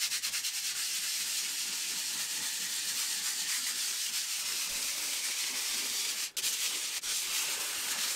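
Hand sanding of a worktop's edge with an abrasive sheet: a steady scratchy rubbing that pauses briefly about six seconds in. The surface is being roughed up to give the resin a key.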